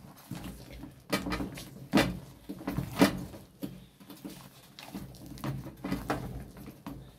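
Wooden turning stick stirring and folding thick banku dough in an aluminium pot: irregular thuds and scrapes, the loudest knocks about two and three seconds in.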